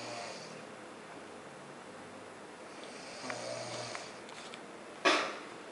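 A sleeping man snoring: two low snores about three seconds apart. A short, sharp, louder noise comes about five seconds in.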